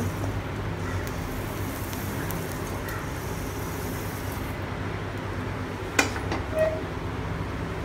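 Dry-roasted coriander seeds rustling and hissing as they are stirred in a steel kadai and then poured out into a cloth-lined steel vessel; the pouring stops about four and a half seconds in. A single sharp clank of metal follows about six seconds in, over a steady low hum.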